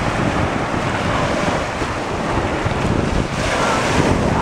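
Ocean surf washing onto the beach, with wind buffeting the microphone; the surf grows louder from about three seconds in.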